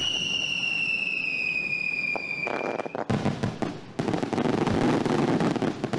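Fireworks being fired at close range, crackling and hissing densely with many sharp snaps. For the first three seconds a long whistle sounds over it, falling slightly in pitch.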